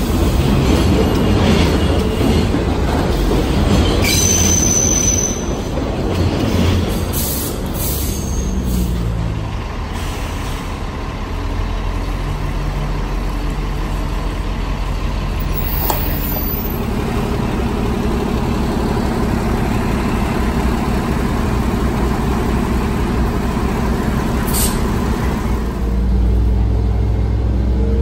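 Heavy vehicle traffic: a loud rumbling pass with a brief high squeal in the first few seconds, then a large engine running steadily, growing louder near the end.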